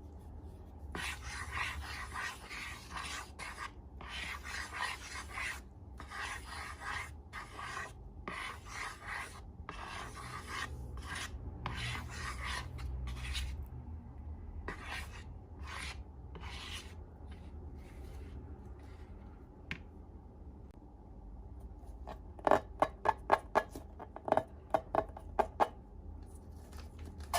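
Hands working slime: a series of rubbing, rasping strokes of about a second each, thinning out midway, then two quick runs of sharp sticky clicks and pops near the end.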